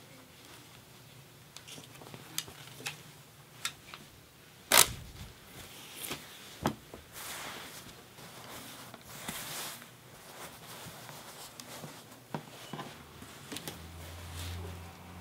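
Cloth rustling and shuffling as a plaid shirt is folded on a wooden table and clothes are packed into a wicker basket, with scattered light taps and one sharper knock about five seconds in.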